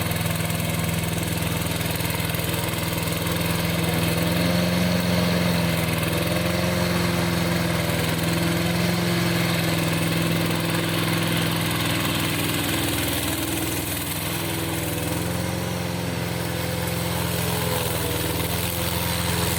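Crawler remote-control slope mower with an 800 mm cutting deck, its engine running steadily, the pitch wavering slightly as it works.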